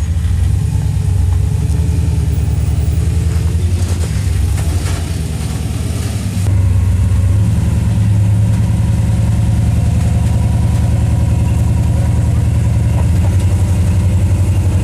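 Toyota FJ40 Land Cruiser's engine running at low revs while rock crawling, its note steady and deep. It eases off for a couple of seconds, then comes back louder about six and a half seconds in and holds there.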